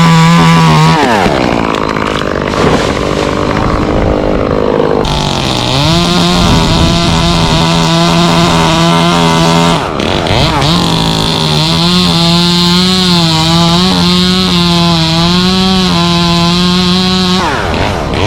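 Chainsaw cutting into mango wood, the engine held at high revs. It drops back to a low idle twice, about a second in and again near the end, with a brief dip around the middle, and its pitch wavers while it is loaded in the cut.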